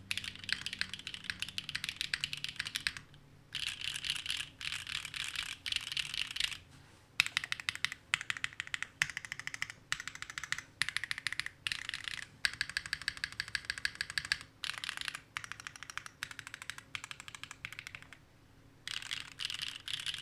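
Rapid typing on a Neo60 Core mechanical keyboard with Gateron Sage linear switches: quick keystroke clacks in long runs, broken by a few short pauses.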